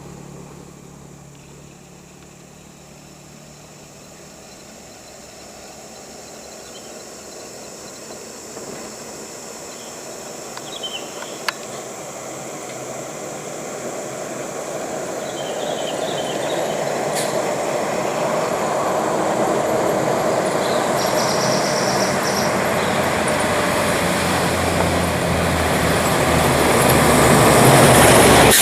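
Heavy logging truck approaching, its engine and rattling load growing steadily louder over the whole stretch, with a few faint clicks about midway.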